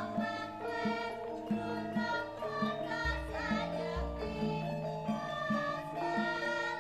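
Background music: a song with a singing voice over a steady beat and a bass line.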